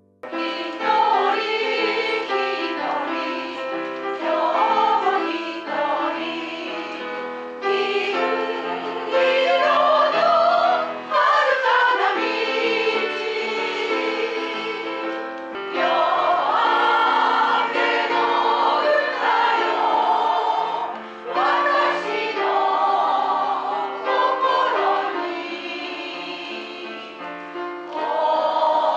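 An amateur choir of older women and men singing a song together, in phrases with short breaks between them.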